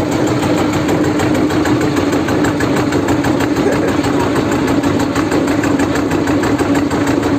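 Small boat engine running steadily, with a constant hum and no change in speed.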